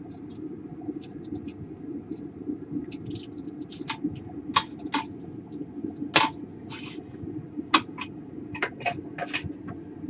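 Irregular sharp clicks, taps and scrapes of a laptop motherboard being fitted and clamped into a metal PCB holder, with the holder's rails and clamps being slid and knocked into place. The loudest knocks come about six and eight seconds in, over a steady low hum.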